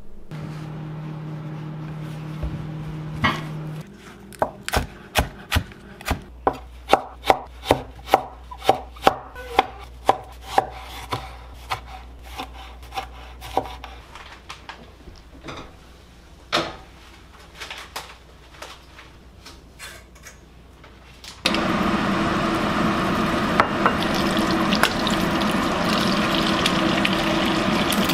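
A steady hum that stops after about four seconds, then a run of sharp knocks, about two a second, for some ten seconds. About three-quarters of the way through, an egg starts frying in hot oil in a wok: a loud, steady sizzle.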